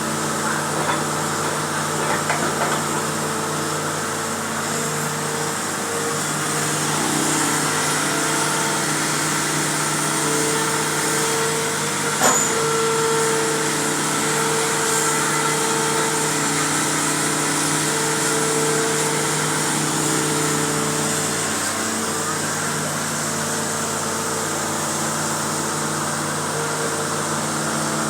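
Hitachi excavator's engine running steadily, with a higher tone that swells and fades several times and a single sharp clank about twelve seconds in.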